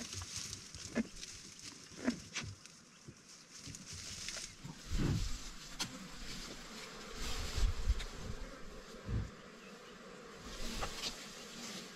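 Flies buzzing close by, with scattered sharp snaps and several low thuds in the second half, from a black rhinoceros browsing on twigs and bushes right beside it.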